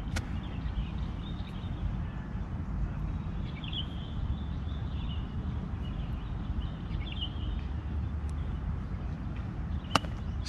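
Steady low outdoor rumble with faint bird chirps, then near the end a single sharp click as a golf iron strikes the ball.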